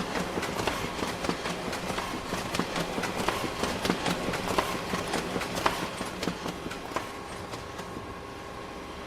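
Office printer running: a steady motor hum under rapid, irregular clicking and rattling, the clicking dying away about seven seconds in.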